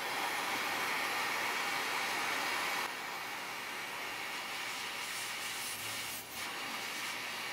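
Hot-air rework station blowing a steady hiss onto a graphics card's circuit board to desolder a blown power transistor (MOSFET). The hiss is stronger for the first three seconds or so, then drops a little and carries on.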